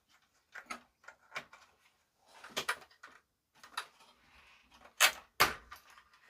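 Clicks and rustling of a ribbon cable being pulled out of its connector inside an amplifier's chassis, with two sharp clicks about five seconds in that are the loudest sounds.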